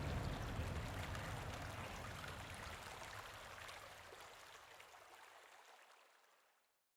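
A steady rushing noise like flowing water with a low rumble, fading out gradually to silence near the end.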